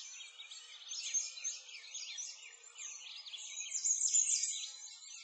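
A chorus of songbirds chirping and singing, many short quick calls overlapping continuously.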